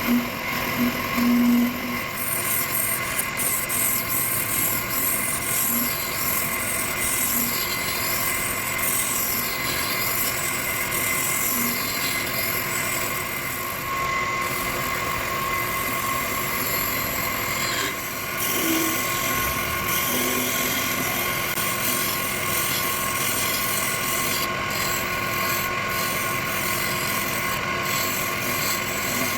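Wood lathe running with a steady motor whine, while a turning tool cuts and scrapes the spinning wood of a candle holder blank. The cutting noise rises and falls between passes.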